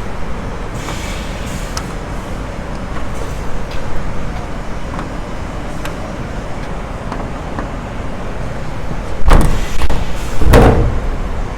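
Two loud, short scraping knocks of a heavy tank access cap being wrestled loose, over a steady low rumble.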